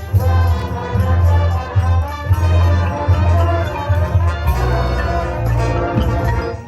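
Marching band playing loud, full-ensemble music: brass chords over heavy low pulses and repeated drum hits. The loud passage breaks off right at the end.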